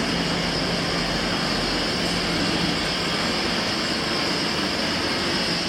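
Steady hum and whir of factory machinery, with a low drone and a high hiss, unchanging throughout.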